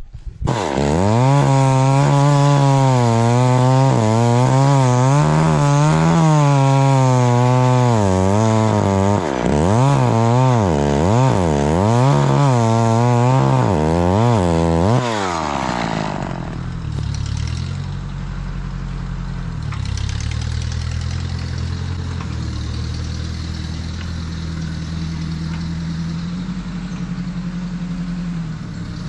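Old 1970s Jonsered two-stroke chainsaw engine running at high revs, its pitch dipping and rising repeatedly. About 15 seconds in it drops back to a steady idle.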